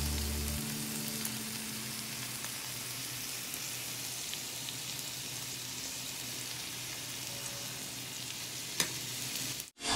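Food sizzling in a hot pan: a steady crackling hiss that cuts off abruptly near the end. The tail of background music fades out in the first second or two.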